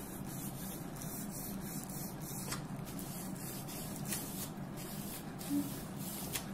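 Plastic bag rubbed repeatedly over freshly glued paper on a box lid, a soft rubbing and crinkling that presses the air out from under the decoupage motif. A steady low hum runs underneath.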